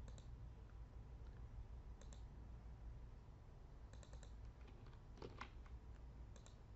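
Faint scattered clicks of a computer mouse and keyboard, a few at a time, with the strongest about five seconds in, over a low steady hum.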